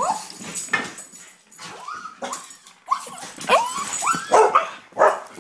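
Excited wheaten terriers whining, yipping and barking in a quick string of short, high calls, several sliding in pitch. The calls are loudest and come closest together in the second half.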